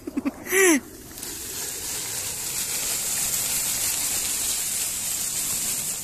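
A man calls out a short greeting, then a steady rushing hiss takes over and stops abruptly near the end.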